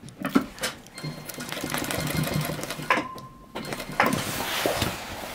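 Industrial needle-feed sewing machine stitching a back pocket onto heavy denim. It runs steadily, stops with a sharp click about three seconds in, then starts sewing again about a second later.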